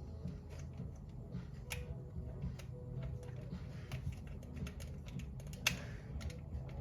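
Irregular small clicks and taps from a plastic Smena 8M film camera being handled, its controls pressed and turned, with one sharper click near the end.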